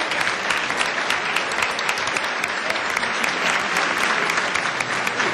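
Audience applauding steadily: dense, continuous clapping from many people.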